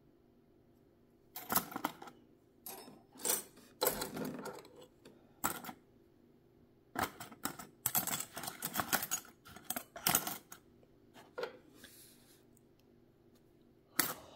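Small metal sewing-machine attachments clicking and clattering as they are handled and set down, in irregular bursts with short pauses, stopping a couple of seconds before the end.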